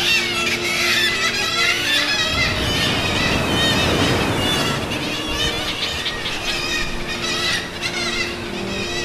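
A seabird colony calling, with many overlapping shrill, wavering cries throughout. The calls sit over background music with held low notes, and a rushing noise swells in the middle.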